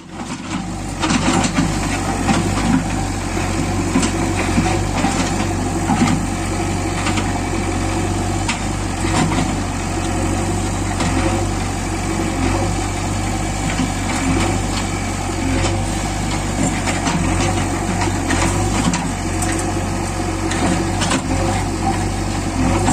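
Diesel engine of a JCB 3DX backhoe loader running steadily, a continuous low drone with a scatter of light ticks and clatter.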